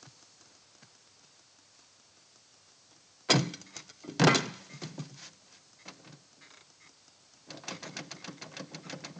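A man clambering onto an overturned car: two loud knocks against the car body about three and four seconds in, a few softer knocks, then a quick run of light clicks and scrapes near the end.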